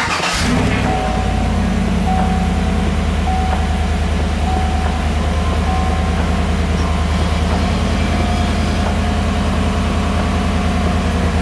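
Chevrolet Silverado's 5.3-litre V8 starting and settling into a steady idle, with a faint tone repeating about once a second over it.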